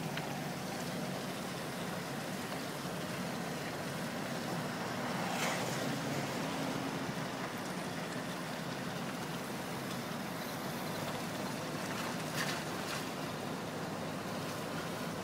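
Steady road and engine noise of a car driving, heard from inside the cabin. Two faint knocks come about five and twelve seconds in.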